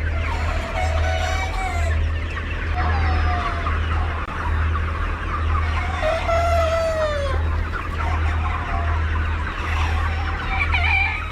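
A flock of chickens clucking and calling all at once, many voices overlapping, with a long drawn-out falling call about six seconds in. A low hum runs underneath.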